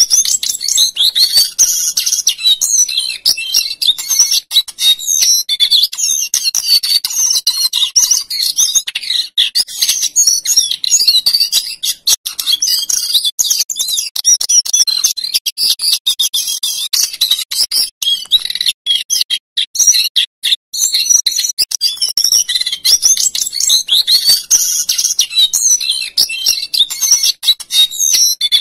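A male lesser shortwing (cingcoang coklat) singing a long, rapid, high warbling song in the rolling, fluting style bird keepers call 'ngerol nyuling', with a brief break about two-thirds of the way through.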